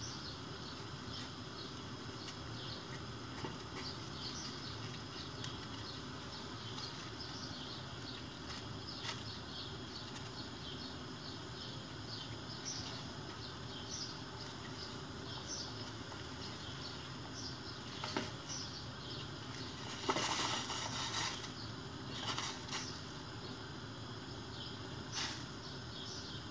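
Water simmering in a stainless steel pot around a ladle with a poaching egg: a steady low hiss with many small bubble pops and ticks, a few louder clicks, and a short louder crackle about twenty seconds in.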